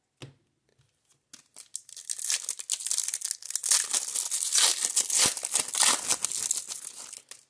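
Foil wrapper of a 1994 Topps Stadium Club baseball card pack being torn open and crinkled by hand: a dense, busy crackling that starts about a second and a half in and stops just before the end.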